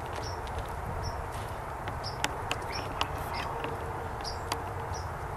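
A small bird chirping repeatedly in short high notes, about once or twice a second, over a steady low rumble of wind and camera handling. A few sharp snaps of dry brush and twigs come through, and a faint steady hum joins after about three and a half seconds.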